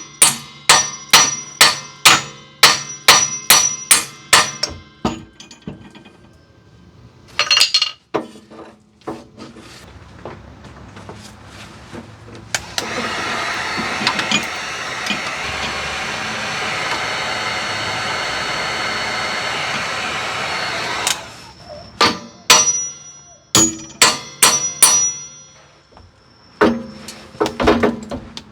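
Hammer blows on the steel suspension parts of an SC300's rear end, trying to knock a seized arm free of the knuckle: quick runs of two to three sharp strikes a second, each leaving a short high metallic ring. In the middle the blows stop for a steady hissing noise of about eight seconds, then the hammering resumes.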